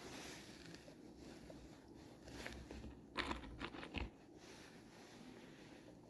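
A quiet stretch with a brief cluster of short clicks and scrapes about three seconds in, like small wooden parts and screws being handled.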